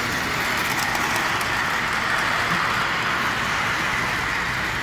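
Model freight train running past on elevated track, a steady whirring of its wheels and motor that grows loudest around the middle as the cars pass close, then eases off.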